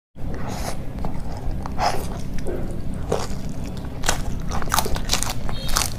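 Close-miked eating: bites into pieces of curried pork and a green chili, with chewing and irregular crisp crunches, over a steady low hum.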